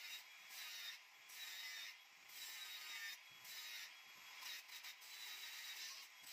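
Faint angle grinder grinding a weld bead flush on steel square tubing, a hissing grind that swells and eases every second or so as the disc bites and lifts.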